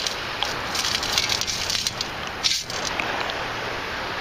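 Sand scoop being shaken and sifted, shells and gravel rattling and crunching in the basket as the water and sand wash out.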